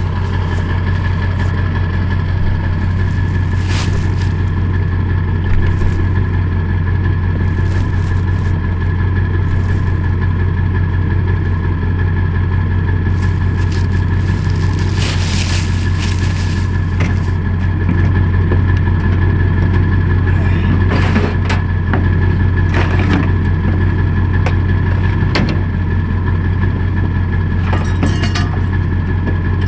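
Pickup truck engine idling with a steady low hum, with scattered knocks and scrapes from loading the buck into the truck bed.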